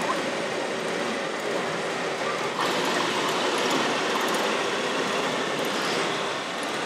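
Steady mechanical whir of radio-controlled construction models' small motors and gearboxes running, with a few faint steady tones under a noisy haze. The higher part of the noise steps up about two and a half seconds in.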